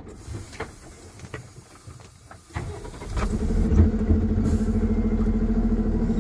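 Loaded truck's diesel engine: a low idle rumble with a few clicks, then about three seconds in it revs up to a loud, steady, throbbing drone.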